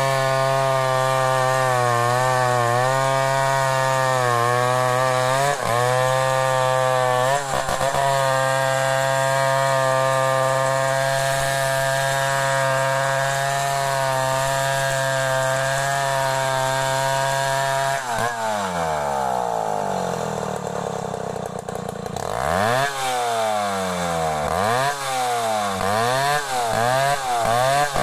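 Stihl 070 two-stroke chainsaw running at high revs under load, ripping a log lengthwise into planks. About 18 seconds in the revs fall away, and from about 22 seconds the engine is revved up and down several times.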